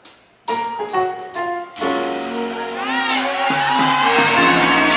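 Live band music starting up: keyboard chords come in about half a second in, and bass and a fuller band join near two seconds, building in level.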